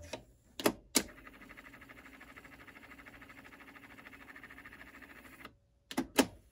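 Music playing back from the tape cuts off, then the TEAC 144's cassette transport keys clunk twice and the tape winds at high speed with a steady fluttering whir for about four and a half seconds. Two more key clunks near the end stop the wind.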